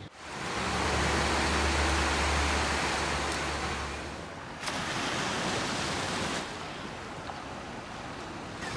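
Steady rushing of sea waves, with a low rumble under it in the first half and the level shifting twice.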